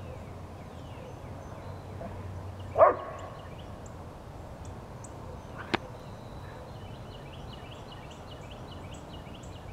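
One short, loud bark from a playing dog about three seconds in, against faint small-bird chirping that comes more often near the end. A single sharp click sounds near the six-second mark.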